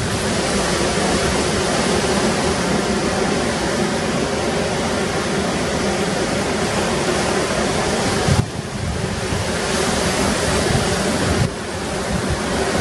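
Ocean surf washing and breaking with wind blowing over the microphone: a steady rushing noise that drops abruptly about eight and a half seconds in and again about eleven and a half seconds in.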